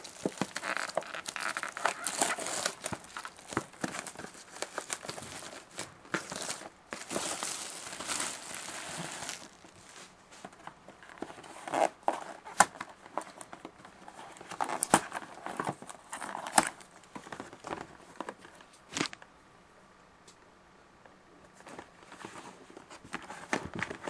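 Plastic shrink wrap being torn and crinkled off a sealed cardboard box of trading cards, with dense crackling for the first ten seconds or so. After that come sparser rustles and sharp clicks and taps as the box is opened and its contents handled.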